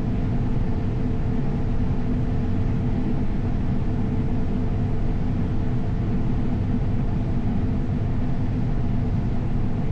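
Steady drone of heavy diesel harvest machinery running, a constant engine hum with a few held pitched tones and no change in speed or load.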